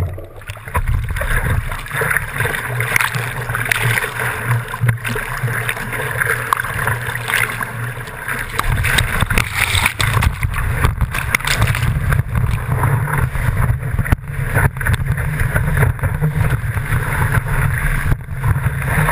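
Breaking surf and whitewater rushing and churning around a surfboard-mounted action camera, which is dunked under the foam at times. Wind on the microphone adds a steady noisy rush with a heavy low rumble.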